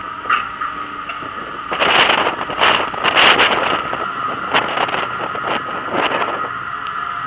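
Wind buffeting and spray striking a deck-mounted camera on a ship in rough seas, with seawater washing across the deck, over a steady high-pitched hum. Louder gusty surges come about two and three seconds in, and again briefly near the end.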